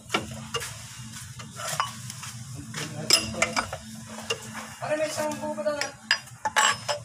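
Metal clicks and clinks from a long-handled wrench being worked on a bolt in a truck's engine bay, with short scrapes of the tool against the engine.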